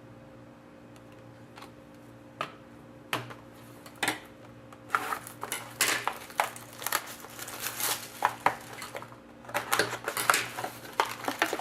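Hockey trading cards and their packs being handled by hand: scattered sharp clicks and short rustles, a few at first and then a busy run of them from about five seconds in, over a faint steady electrical hum.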